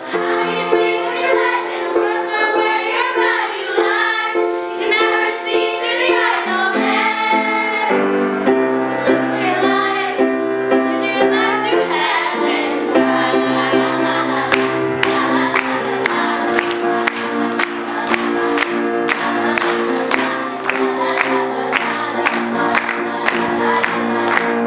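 A group of children singing a song together over music of sustained chords. A steady, evenly spaced beat comes in about halfway through.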